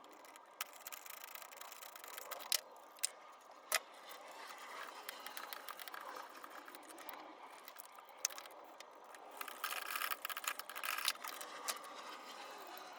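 Hand tools and metal parts clinking and rattling while a valve cover is unbolted. Sharp single clicks come a second or so apart, then a dense run of rapid clicking and rattling near the end.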